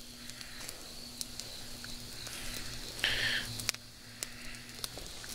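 Small campfire of damp, gathered twigs and branches hissing as moisture steams out of the wood, with a handful of sharp crackles and a stronger hiss about three seconds in.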